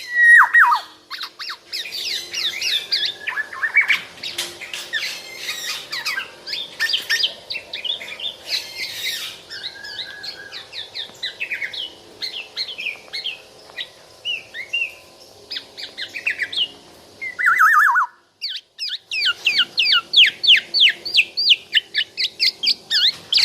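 Black-naped oriole (kepodang) singing and calling: fast runs of short chirpy notes, broken by a few drawn-out falling whistles, with a brief pause about three-quarters of the way through.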